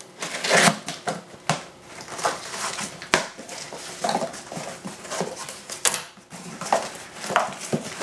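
Cardboard shipping box being opened by hand: a blade slicing through the packing tape, the flaps rustling and scraping, and the cable spool inside knocking against the cardboard as it is handled. It comes as an irregular run of crackles, scrapes and sharp knocks.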